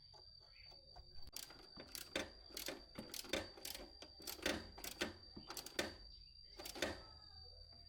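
A run of about a dozen sharp clicks and knocks, roughly two a second and unevenly spaced, stopping near the end, over a faint steady high-pitched tone.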